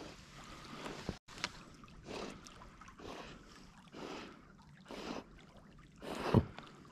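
Water splashing and sloshing in short bursts about once a second, with a brief falling sound near the end.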